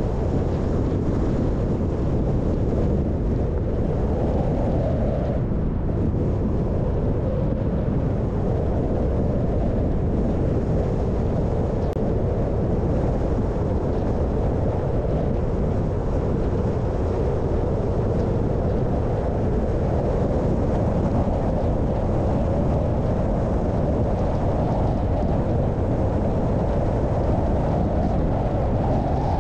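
Car driving along a road: steady engine and road noise.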